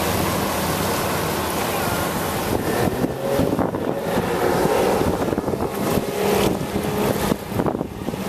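Twin Yamaha outboard motors on a RIB running at speed, mixed with the rush of the hull's wash, while wind buffets the microphone. The sound thins out near the end as the boat draws away.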